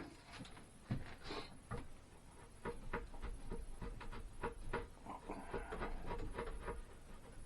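Hand chisel being driven into wood with a small mallet, cutting a rabbet: a run of short, light knocks, a few a second, coming faster after the first couple of seconds.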